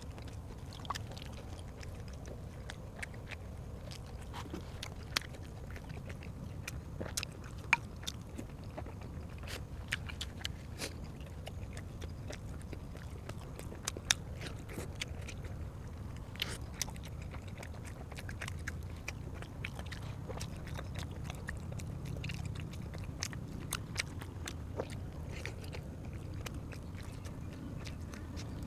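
Close-up eating sounds: biting and chewing, with irregular sharp wet clicks and smacks throughout, over a low steady background hum.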